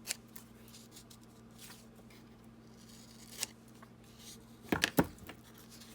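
Paper being cut to size and handled: faint scattered snips and rustles, with a quick cluster of sharp clicks about five seconds in.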